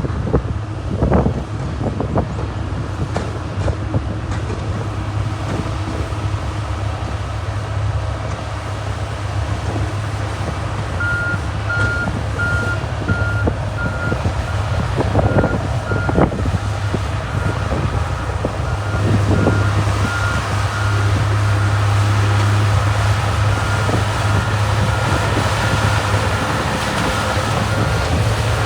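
Diesel engine of heavy earthmoving machinery (bulldozer or compaction roller) running steadily under work, with a few knocks. From about a third of the way in, a reversing alarm beeps repeatedly as the machine backs up.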